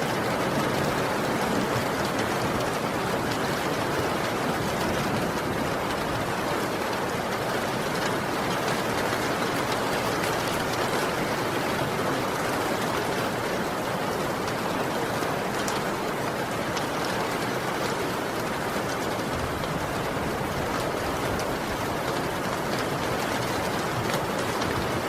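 Heavy rain falling steadily: an even, unbroken hiss of rain.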